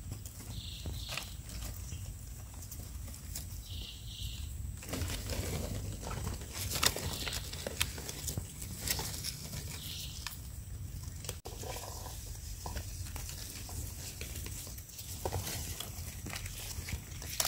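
Scattered rustling, snapping and crackling of hands and feet working through dry forest litter while picking wild mushrooms, over a steady low rumble on the microphone.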